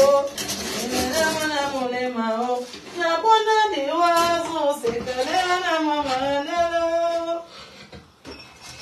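A person's voice singing slowly in long, drawn-out notes that bend up and down, fading out shortly before the end.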